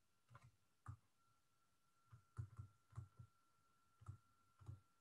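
Near silence, with about eight faint short taps of a stylus writing on a tablet, and a faint steady high tone from about a second in.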